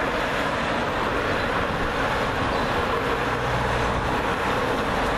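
A convoy of cars driving past one after another, a steady noise of engines and tyres on the road, with one engine's low hum swelling a few seconds in.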